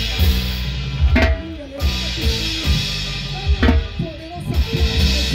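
Live band music driven by a drum kit: steady drumming with cymbal wash, two sharp strikes about a second in and again near four seconds, over bass and a wavering melodic line.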